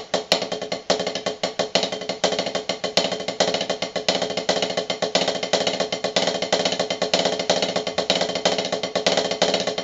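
Snare drum played with sticks in a fast, continuous rudimental pattern: two five-stroke rolls followed by two single strokes, repeated over and over.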